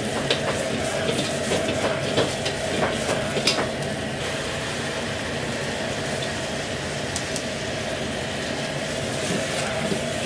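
Vegetables stir-frying in a wok over a high-powered gas wok burner: the burner's steady rush and sizzling, with the metal ladle knocking and scraping against the wok. The ladle clatters often in the first four seconds, then the steady burner and frying noise carries on mostly alone.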